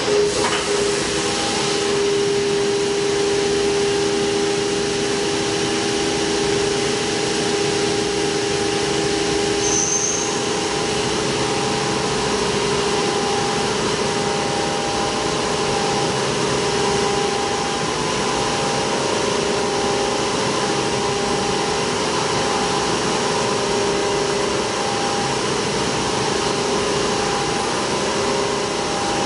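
CNC milling machine's end mill cutting a pocket in a metal block under flood coolant, on a traditional 2.5D racetrack pocketing toolpath. Steady cutting whine over a constant hiss of coolant spray and chips.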